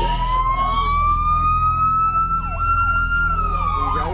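Emergency vehicle sirens approaching: one siren wails in a slow rise and turns down in pitch near the end, while a second siren warbles faster underneath. A steady low rumble runs beneath them.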